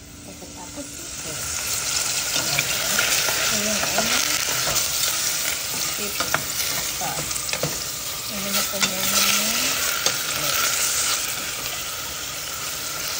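Raw pork pieces sizzling as they sear in a stainless steel pot, stirred with a wooden spoon that clicks and scrapes against the pot now and then. The sizzle swells over the first two seconds and then holds steady.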